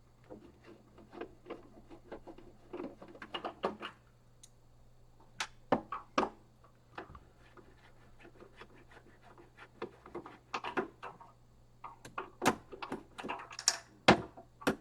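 Magnetic screwdriver working the case screws out of a Commodore 1541 disk drive: irregular clicks, taps and scraping of metal on screw heads and the plastic case, busiest near the end.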